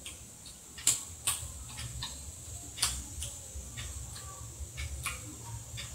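Irregular sharp clicks and ticks, a handful of them louder than the rest, over a faint low hum.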